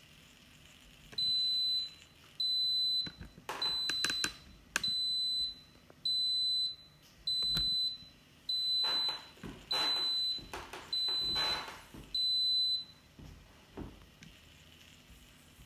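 Instant Pot Smart WiFi electric pressure cooker beeping ten times, a high-pitched tone about every second, as its cook timer runs out at the end of a water test.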